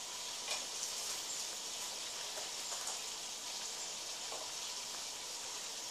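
Pen writing on notebook paper: a steady scratchy hiss with faint small taps from the pen strokes.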